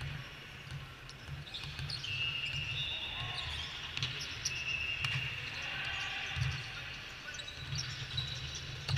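Indoor volleyball court sound in a large dome hall: balls being struck and bouncing on the court, several short high sneaker squeaks, and voices in the background.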